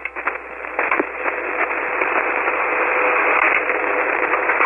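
Shortwave single-sideband receiver hiss on the 40-metre band between transmissions, with a couple of clicks in the first second and a faint steady whistle. The hiss swells over the first second or so.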